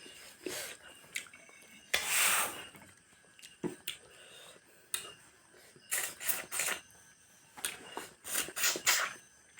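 Eating sounds at a table: cutlery clicking and scraping against dishes in scattered bursts, with a longer noisy stretch about two seconds in and clusters of quick clicks near the middle and end.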